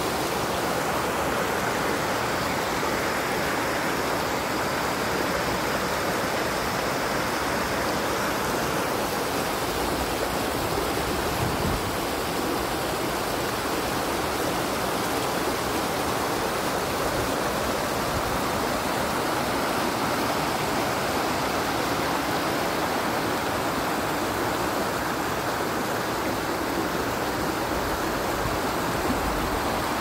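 Water rushing steadily over the rock ledges of a lake spillway waterfall and through the shallow rapids below it.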